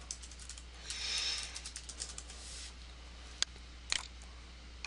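Computer keyboard keys tapped in a quick run of light keystrokes, then, after a pause, two sharp mouse clicks about half a second apart near the end.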